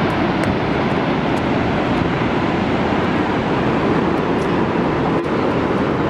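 Steady roar of the Vøringsfossen waterfall plunging into its gorge.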